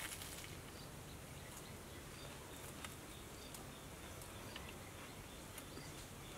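Faint outdoor ambience with short, high chirps of insects recurring about once a second. There are a couple of faint crisp clicks at the very start, as the crispy breaded cheese stick is bitten.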